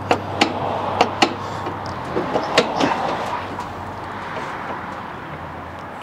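Sharp clicks and clunks, about five in the first three seconds, from a lawn tractor's park lever and pedal linkage being worked by hand.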